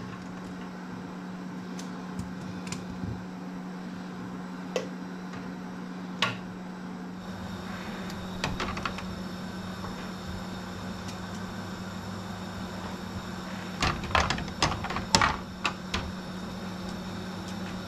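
Glass canning jars clinking and knocking against the metal pressure canner and each other as they are lowered in one at a time with a jar lifter: scattered clinks, with a busy cluster near the end, over a steady low hum.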